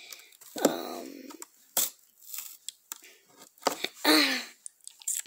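Clothing fabric and a cardboard tag rustling and crinkling as they are handled, with scattered sharp clicks and short scrapes.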